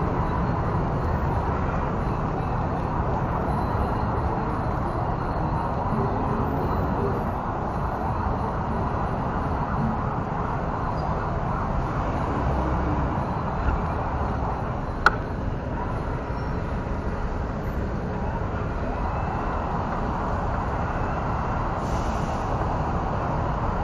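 Onboard sound of a Tamiya Toyota Land Cruiser 40 radio-controlled car driving over tiled pavement: a steady noise from its electric drivetrain and wheels, mixed with city traffic. There is one sharp click about fifteen seconds in.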